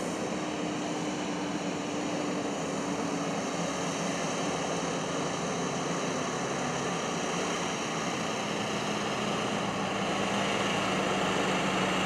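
Silage truck's diesel engine running as it drives closer on a dirt farm road, a steady engine hum that grows slowly louder toward the end.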